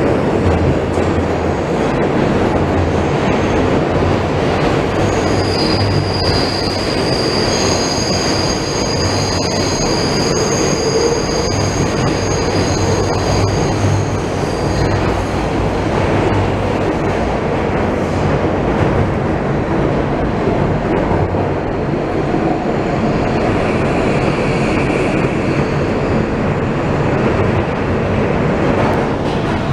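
R160B Siemens subway car running at speed, heard from inside the car, with a steady rumble and hum. Wheels squeal high-pitched for about ten seconds, starting some five seconds in, as the car takes a curve.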